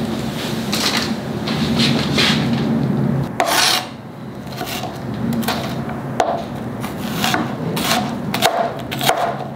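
Kitchen knife cutting an onion on a cutting board: scraping and slicing strokes, turning into a run of regular cuts in the second half. Under the first three and a half seconds runs a steady low hum that stops suddenly.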